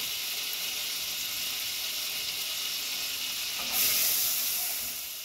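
Butter sizzling in a hot stainless saucepan, a steady hiss. About three and a half seconds in the sizzle surges louder for a moment as a wooden spoon works in the pan, then eases off.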